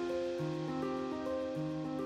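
Background music: slow, soft held notes, with a new note starting about every half second over a sustained low tone.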